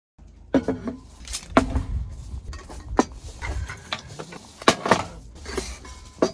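Clinks and knocks of camp kitchen gear being handled, a string of sharp irregular hits, over a low rumble of wind on the microphone.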